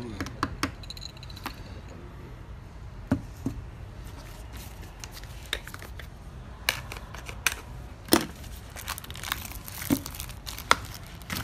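Plastic packaging of a set of skateboard wheels being cut open with a box cutter and handled: scattered crinkles, clicks and taps, with a denser stretch of crinkling about nine seconds in.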